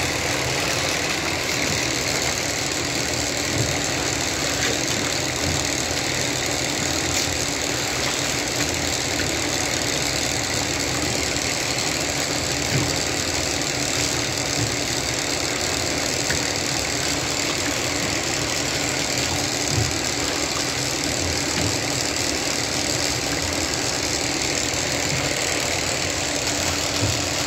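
A steady machine-like roar with a continuous low hum and no let-up, with a few brief knocks about 4, 13 and 20 seconds in.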